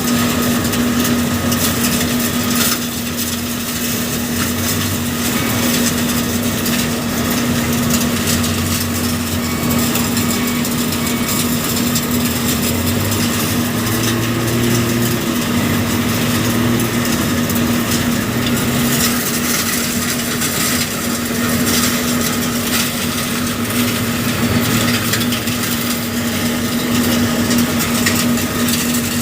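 Engine of a road-repair machine running steadily, a constant hum under a rough noise with irregular clatter.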